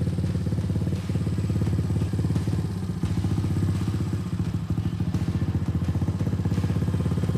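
Restored 1987 Honda ATC200X's air-cooled four-stroke single-cylinder engine idling steadily, with a fast, even exhaust pulse.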